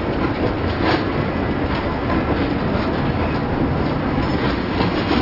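Freight cars rolling past close by: a steady rumble of steel wheels on rail, with recurring clacks as the wheelsets cross rail joints.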